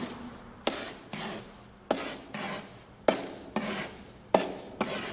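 Steel brick trowel scraping and slicing through mortar on a board while rolling and furrowing a mortar bed, with six sharp clicks of the trowel.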